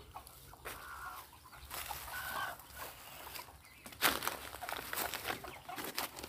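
Chickens clucking, with short calls early on, and scuffing and rustling sounds coming in from about four seconds in.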